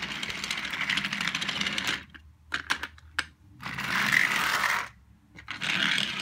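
Motorized toy train's motor and gears running with a fast rattling whir that stops about two seconds in. A few sharp plastic clicks follow, then two short bursts of the motor whirring as the trains are handled.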